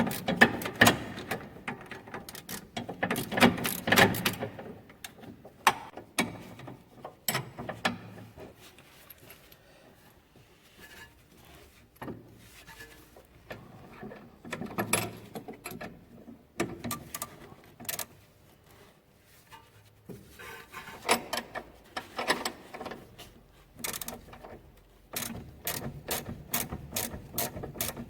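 Ratchet spanner clicking in repeated bursts as the nut on a car's anti-roll bar drop link is tightened, with a fast, even run of clicks near the end.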